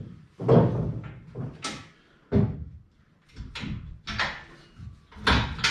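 A run of about seven heavy clunks and knocks at uneven intervals, each with a short ringing tail, from work on a loose steel tire-carrier rear bumper on a Jeep TJ.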